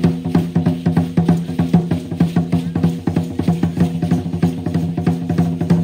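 Fast, even drumbeat of traditional Aztec-Chichimeca dance music, the drum ringing between strokes.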